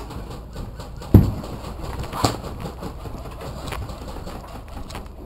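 Knocks, rubbing and footfalls of a player moving fast with a camera rig, with a heavy thump about a second in and a sharp snap about a second after it.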